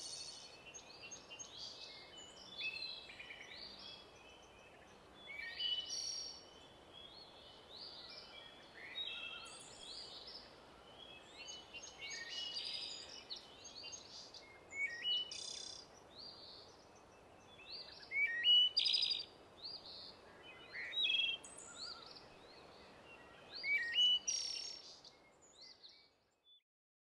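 Several songbirds singing and calling, short chirps and trills overlapping over a faint steady hiss, the loudest phrases about two thirds of the way through and near the end; the sound cuts off just before the end.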